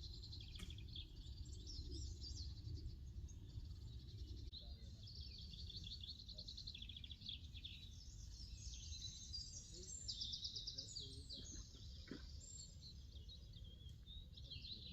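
Small songbirds chirping and singing continuously, quick runs of repeated high notes, over a steady low outdoor rumble.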